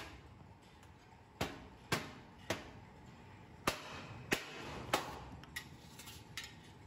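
Hammer striking the dished steel end cap and rim of a rolled steel air-tank shell as the cap is knocked into place: sharp metallic knocks with a short ring. About seven hard strikes at uneven intervals, with a couple of lighter taps near the end.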